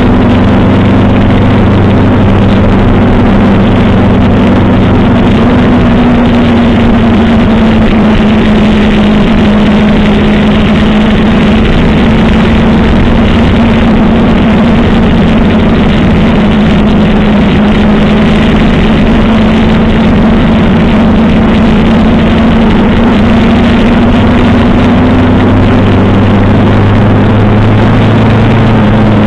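1985 Suzuki GS 700 ES's inline-four engine running at a steady cruise, its pitch drifting only slightly up and down, under a loud, steady rush of wind and road noise.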